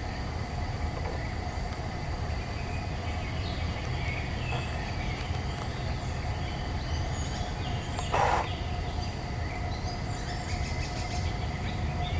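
Small woodland birds calling faintly and sporadically over a steady low rumble, with one short, louder noise about eight seconds in.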